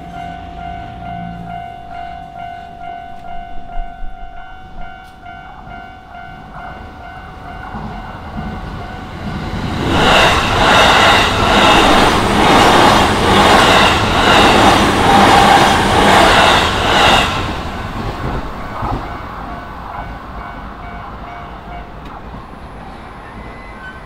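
Level-crossing warning bell ringing steadily as the barriers come down. Then an electric commuter train of the JR Yokohama Line passes loudly for about seven seconds, its wheels clattering in an even rhythm over the rail joints. The bell carries on more faintly after the train has gone by.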